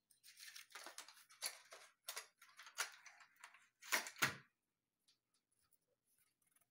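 Craft supplies handled on a tabletop: a quick run of short scrapes and clicks, the loudest pair about four seconds in, then only a few faint ticks.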